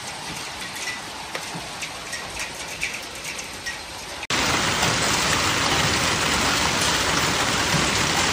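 Hailstorm: a steady hiss of falling hail and rain with scattered sharp ticks of hailstones striking hard surfaces. About four seconds in it cuts to a louder, denser, unbroken rush of hail coming down.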